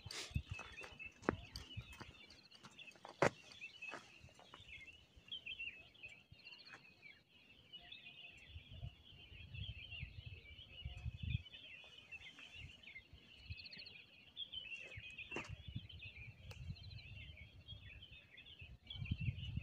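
Many birds chirping together in a steady dawn chorus, with some low rumbling swells and a few sharp clicks.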